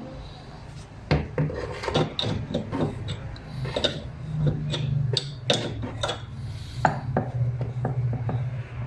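Metal parts and tools clicking, clinking and scraping, in many short sharp strokes, with a steady low hum setting in about halfway.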